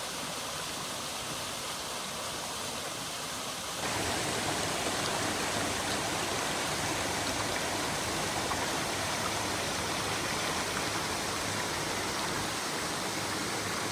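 Waterfall: a steady rush of water that steps up louder about four seconds in.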